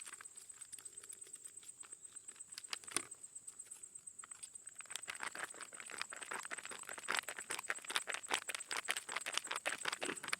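Crinkling and crackling of MRE plastic ration packaging being handled, scattered at first and denser and louder from about halfway through.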